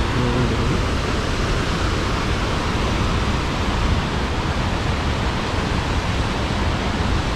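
Steady rush of a waterfall plunging into its pool, with water cascading over rocks below it.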